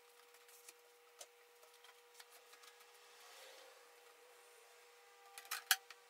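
Cloth wiping an iMac's LCD panel with faint rubbing and small ticks, then a few sharp clicks near the end as the glass front panel is set down onto the aluminium frame.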